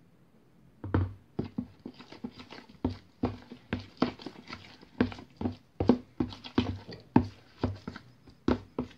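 A metal spoon stirring a thick semolina dough in a bowl: repeated knocks and scrapes of the spoon against the bowl, about two to three a second, starting about a second in.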